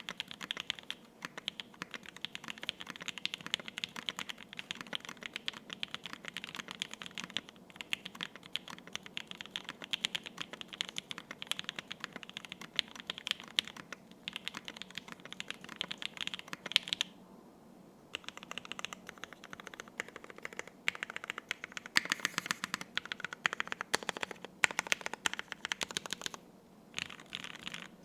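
Continuous fast typing on a custom KFE CE mechanical keyboard with lubed, filmed Lavender linear switches on a polycarbonate plate and GMK keycaps: a dense run of keystroke clicks, with a short pause a little past halfway before the typing resumes in bursts.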